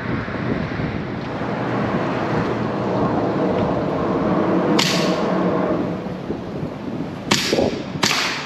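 Three shots from an AEA HP SS semi-automatic .22 PCP air rifle: one sharp report about five seconds in, then two more close together near the end, each echoing briefly under a concrete bridge. Under them runs a steady low rumble.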